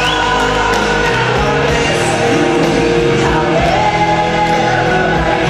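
Music with a singing voice, played at a steady level.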